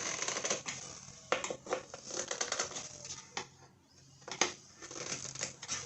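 Hand tools clicking and clinking on the mower's seat screws and metal hardware, in short runs of quick clicks with a few sharper knocks between.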